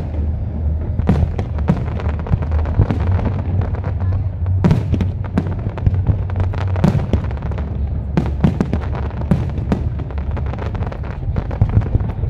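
Fireworks display: aerial shells bursting one after another with crackling in quick clusters, over a steady low rumble.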